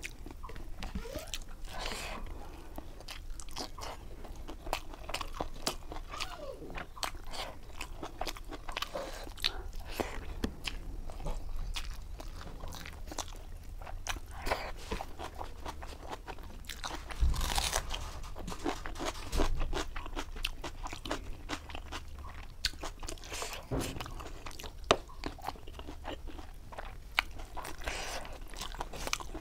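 Close-miked chewing of a mouthful of rice and catfish, with a steady run of crisp crunching clicks and a few louder crunches past the middle.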